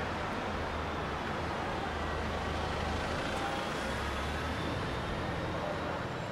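Steady city road traffic: passing buses, vans and cars, with a low engine rumble under the tyre noise.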